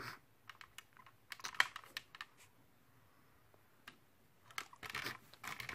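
Faint, scattered clicks and taps of a hard plastic DX Phoenix Unizord toy robot being handled and turned in the hands. There is a cluster of clicks in the first two seconds, a lone one partway through and a few more near the end.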